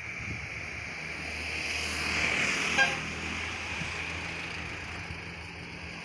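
A small van driving past close by, its engine and tyre noise swelling and then easing off, with one short horn toot as it passes, just under three seconds in.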